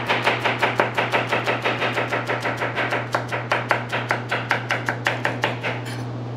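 Shun 8-inch chef's knife slicing celery on a cutting board: a quick, even run of knife strikes, about six a second, stopping near the end.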